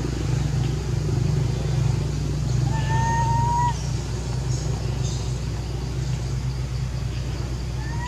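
Steady low engine hum throughout. About three seconds in comes a single thin, slightly rising call lasting under a second, and another begins right at the end.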